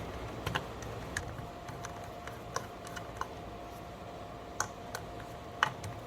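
Light, scattered clicks of a small screwdriver and screws being worked out of a hotel door lock's clutch plate, with a faint steady hum underneath.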